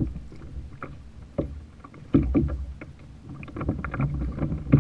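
Small waves splashing and knocking against a plastic kayak hull, with wind rumbling on the microphone. Irregular clicks and knocks run throughout, and a sharper thump comes about two seconds in.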